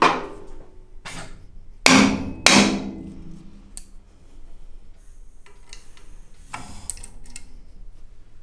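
Red plastic-faced mallet striking an aluminium engine cylinder head held in a valve spring compressor: a sharp knock at the start, a lighter one about a second in, then two loud knocks half a second apart, each with a short ring. Small metallic clicks follow near the end.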